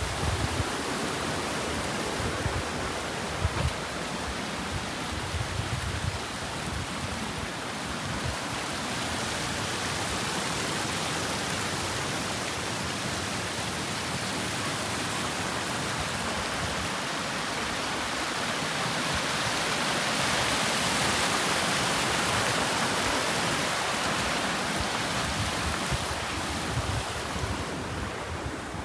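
Rushing water of a fast-flowing stream: a steady hiss that swells a little about two-thirds of the way through and eases off near the end. A few low bumps sound in the first few seconds.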